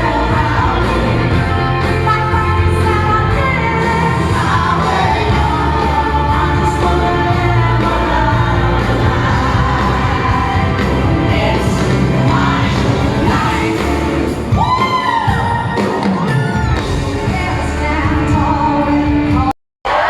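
Loud pop music with singing and a heavy bass beat, played over a sound system at a party. The bass thins out for a few seconds past the middle, and the sound cuts out briefly near the end.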